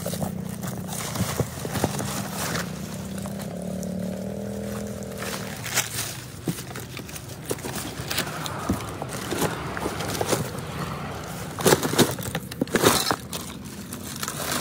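Paper slips rustling and crinkling, and broken phones clacking and scraping against each other as a hand rummages through a cardboard box of them, with a cluster of sharp clacks near the end. A low steady hum runs under the first half.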